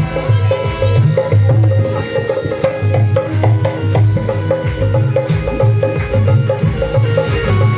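Loud Pahari folk dance music with a steady beat of deep drum hits under a held melody.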